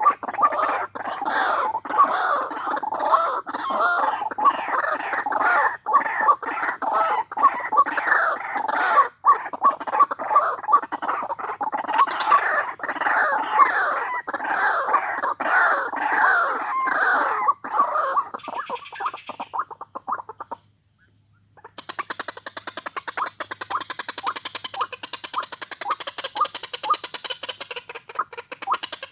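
White-breasted waterhen (ruak-ruak) calling: loud, harsh croaking calls repeated over and over at a rapid rhythm. About 20 seconds in they stop abruptly, and after a short gap fainter, quicker calling carries on.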